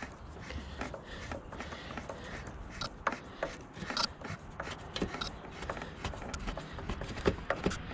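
A screw being tightened by hand with a tool on a Tecumseh lawnmower engine's air cleaner: irregular small clicks and scraping of tool and metal parts.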